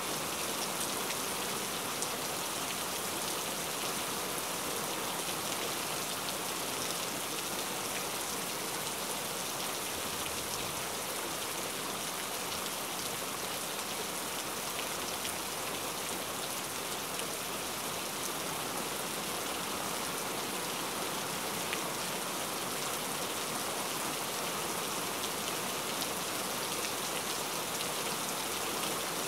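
Steady rain falling and pattering on a surface, an even hiss with fine scattered drop impacts, no thunder.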